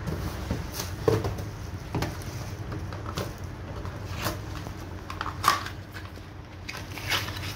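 Cardboard tablet box and paper insert being handled: rustling paper and card with scattered light knocks as the tray is set down and the insert is pulled out, the sharpest about five and a half seconds in.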